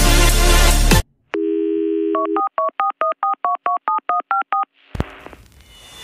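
Electronic music with heavy bass cuts off about a second in. A telephone dial tone follows, then a quick run of about a dozen touch-tone keypad beeps, as if a number is being dialled, and a whoosh near the end.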